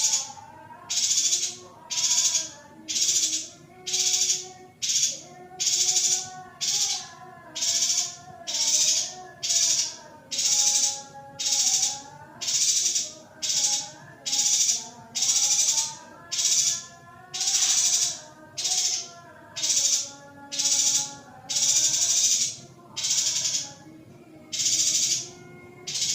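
Female yuhina calls, short high buzzy notes repeated about once a second, laid over background music with a gliding melody.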